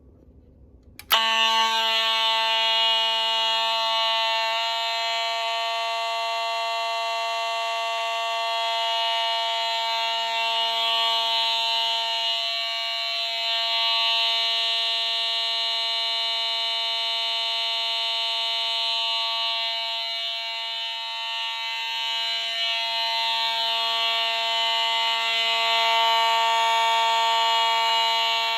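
Fire alarm notification appliances sounding a continuous, steady buzzy horn tone that starts abruptly about a second in.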